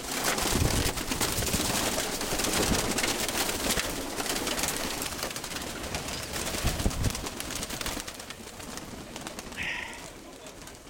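Domestic pigeons, with a dense rustling, fluttering noise that is loudest at first and fades toward the end, and one short brighter sound near the end.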